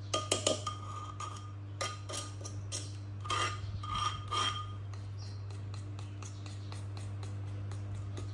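Wooden pestle pounding and mashing in a clay mortar, with a metal spoon clinking and scraping against the bowl: a run of knocks and scrapes in the first five seconds, then only faint taps. A steady low hum runs underneath.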